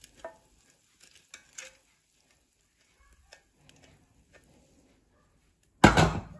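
Wooden spoon scraping and tapping cooked soybean pulp out of a stainless steel saucepan into a metal mesh strainer, in faint scattered scrapes and light clicks. Near the end comes one short, much louder knock.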